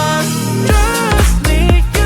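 Background pop dance music: a pitched melody over sustained bass, with a steady kick-drum beat coming in about two thirds of a second in.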